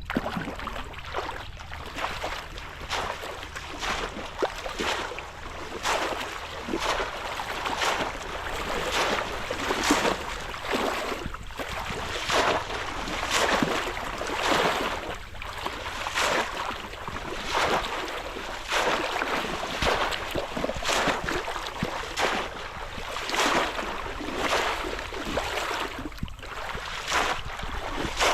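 Repeated splashing in shallow river water, roughly one splash a second, as the water is churned again and again.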